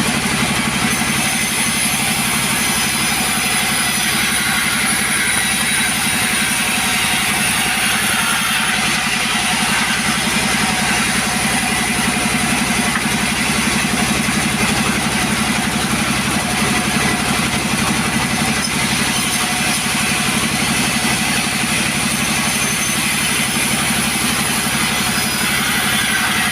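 Two-stroke chainsaw engine running steadily, with no change in speed or break in the sound.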